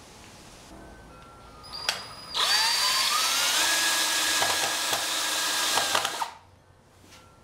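Cordless DeWalt drill/driver driving a screw through a steel Simpson Strong-Tie bracket into a wooden 2x4. A brief blip of the motor comes first, then about four seconds of steady running with a whine that rises as the motor spins up, and it stops abruptly.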